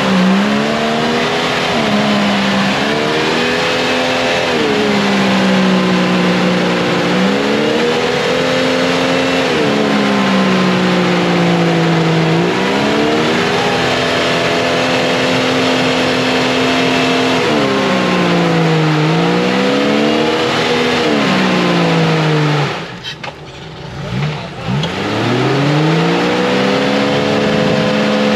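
Lifted Jeep Cherokee's engine revving up and down repeatedly as it claws through deep mud ruts, the pitch climbing and falling every couple of seconds. About 23 s in the throttle drops off and it goes quieter for a couple of seconds, then it revs hard again.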